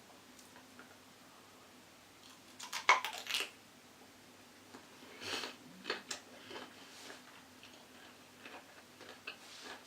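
A cucumber crunching as a Foley stand-in for the cracking chocolate shell of a Magnum ice cream: a quick cluster of crisp cracks about three seconds in, then a run of smaller, irregular crunches.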